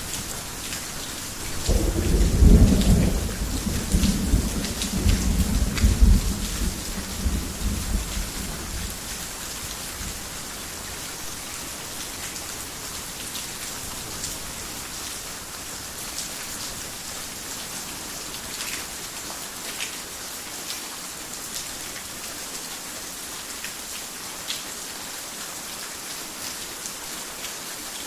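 Heavy rain falling steadily on a roof, with scattered drop ticks. A long roll of thunder begins about a second and a half in, peaks twice and rumbles away over the next several seconds.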